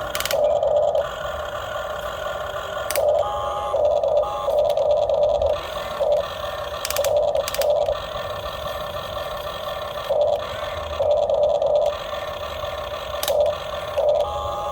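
Motors of a radio-controlled model excavator whining in repeated spurts of about a second each as its controls are worked, with a few sharp clicks in between.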